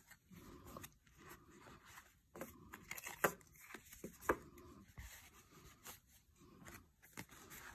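Faint rustling of a cotton drawstring bag and a deck of cards being handled as the cards are slid into the bag, with scattered soft taps and a couple of sharper clicks midway.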